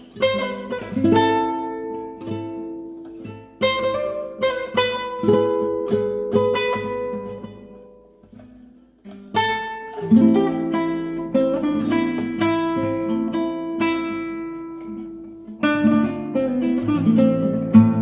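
Guitar playing a melody of single plucked notes over chords. The notes ring out and die away about eight seconds in, then the playing resumes a second later with fuller picked chords.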